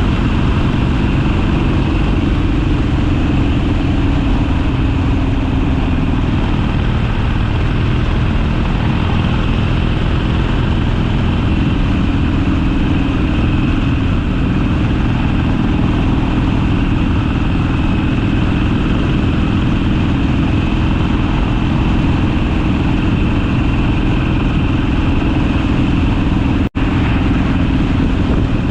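Harley-Davidson Sportster V-twin engine running on the road at a fairly steady speed, its pitch dipping slightly several seconds in. The sound cuts out for a split second near the end.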